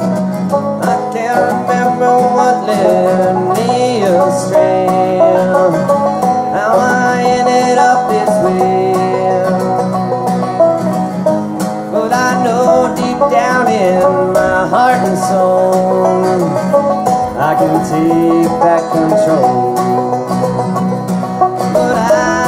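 Banjo and acoustic guitar playing a bluegrass tune together, with quick plucked banjo rolls over strummed guitar.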